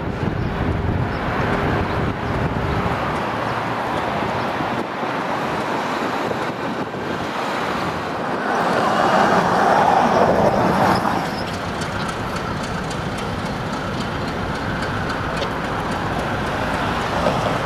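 Diesel freight locomotive running toward the listener at the head of a double-stack container train, its engine and wheels on the rails mixed with road traffic noise. The noise swells louder for a couple of seconds about halfway.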